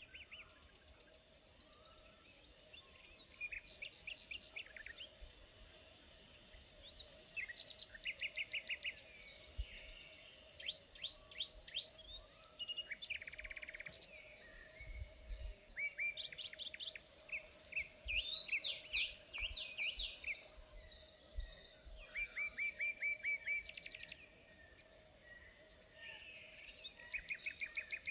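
Several songbirds calling, with quick runs of repeated chirps and trills from more than one bird, over a faint steady hum and intermittent low wind rumble.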